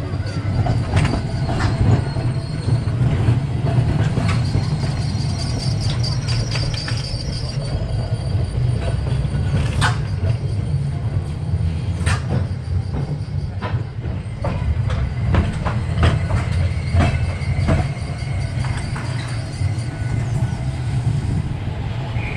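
Vintage double-deck electric tram running along street track: a steady rumble of wheels on rail, with irregular clicks and knocks over the rail joints. A high wheel squeal sounds over the first several seconds.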